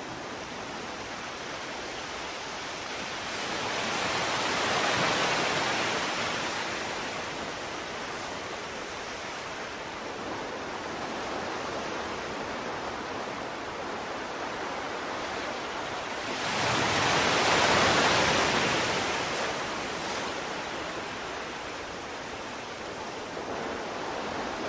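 Surf washing onto a sandy beach: a steady hiss of small waves, swelling twice as waves break, about four seconds in and again around sixteen seconds in.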